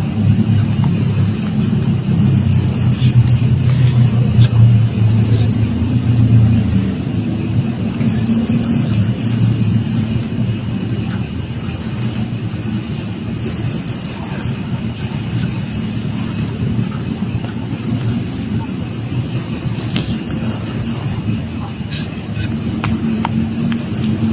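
Crickets chirping in short trills of rapid pulses, repeating every second or two, over a steady high insect whine and a low steady rumble.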